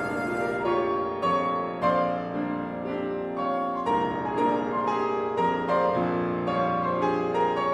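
Grand piano playing a solo passage of chords, struck about twice a second.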